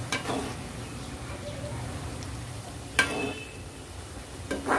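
Shakarpara dough pieces deep-frying in hot oil with a steady sizzle, while a metal slotted spoon stirs them and clinks sharply against the pan three times, loudest about three seconds in.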